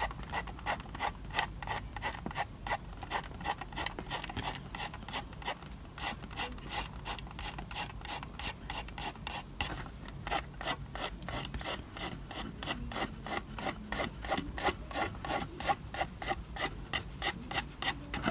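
Fingertip rubbing quickly back and forth over the embossed brick wall of a model house, working the freshly stencilled ghost-sign paint, in a steady run of short scraping strokes about five a second.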